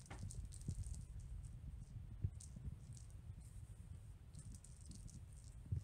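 Faint scratching and rustling of a cat's claws and paws on a rug while it plays with a small ball toy, with a few soft thumps, over a low steady rumble.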